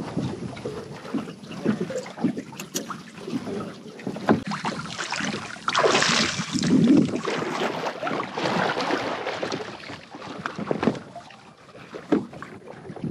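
Kayak on the water: irregular splashing and sloshing with short knocks against the hull, and a louder rushing stretch about halfway through.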